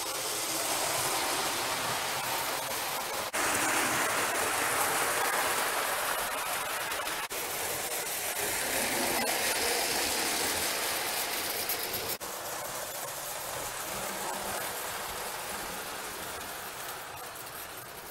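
Prewar Lionel O gauge train, a 226E steam locomotive pulling tinplate Pullman cars, running fast on three-rail track: a steady rumble and clatter of metal wheels on the rails with the locomotive's motor, broken by short cuts a few times.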